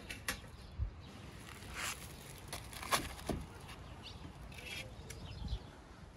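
Foil-wrapped lamb legs being handled on a metal tray: aluminium foil crinkling and scattered knocks against the tray, with a few faint bird chirps.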